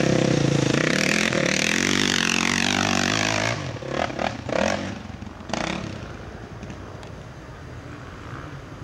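Dirt bike engine revving hard under load on a muddy hill climb, loud for the first three seconds or so. Then a few short bursts of throttle follow, and the engine fades as the bike pulls away.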